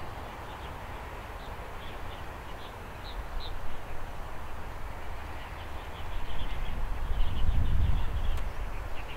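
Airbus A321 jet airliner on landing approach over the runway: a low engine rumble that grows louder over the last few seconds as it nears, with small birds chirping.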